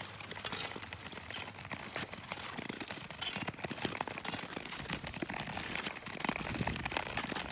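Ice skate blades gliding and scraping over natural lake ice: a continuous scraping hiss full of small crackles.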